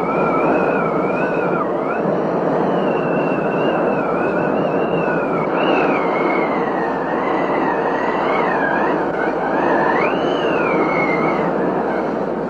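Heavy rain pouring steadily during a thunderstorm, with a thin high whistle that wavers up and down in pitch over it.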